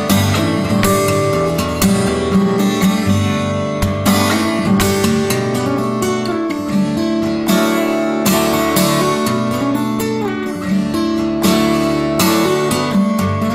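Background music: a strummed acoustic guitar playing a steady rhythm.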